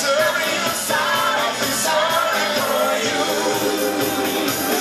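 A live band playing a pop song, with a male lead singer.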